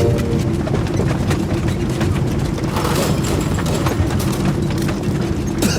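Airliner cabin in turbulence: a steady loud rumble with continual rattling and clattering.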